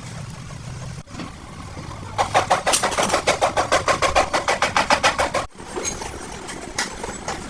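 A rapid, regular mechanical rattle of about ten strokes a second, starting a couple of seconds in and cutting off abruptly about three seconds later, over a low steady hum.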